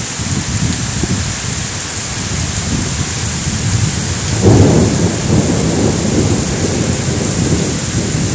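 Heavy downpour: a steady hiss of rain, with gusting wind and a low rumble that swells loudest about four and a half seconds in.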